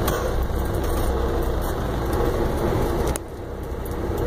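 Inside a semi-truck cab, the diesel engine gives a steady low rumble while the truck idles and creeps in traffic. A hiss sits over it and drops away about three seconds in.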